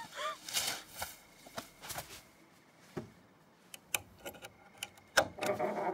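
Small metallic clicks and ticks, irregular and spaced out, of a wire lock pick being worked in a door lock, with a sharper click about five seconds in followed by a short rasping sound.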